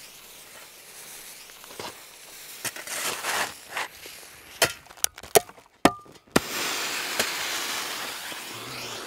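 Several sharp bangs and pops in quick succession about halfway through, like firecrackers, followed by a steady hiss.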